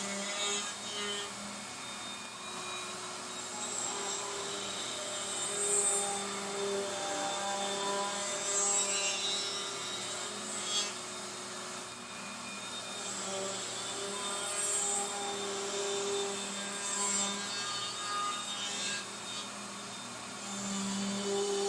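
Router running with a 1/4 inch roundover bit, rounding over the edges of maple: a steady motor hum, with short louder rushes each time the bit cuts into the wood.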